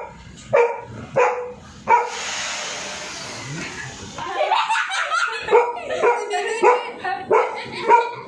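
A dog barking in short, sharp, repeated barks, alarmed by a drilling machine. After three barks, an electric drill runs steadily for about two seconds with a hissing whir. The barking then starts again, faster and more insistent.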